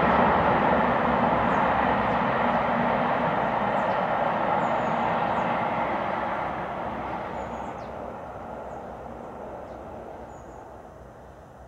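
BR Standard Class 7 'Britannia' Pacific steam locomotive 70013 Oliver Cromwell and its train running at speed, the noise fading steadily away as it passes into the distance. Faint bird chirps sound above it.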